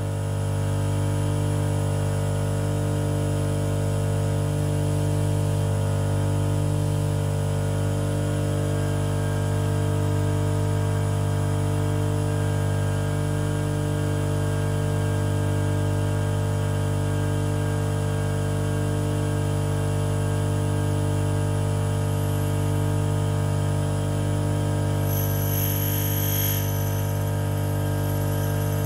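Union tool and cutter grinder running steadily: an even electric-motor hum with several steady tones from the motor and wheel spindle while the wheel spins free. Near the end comes a brief, high-pitched hiss.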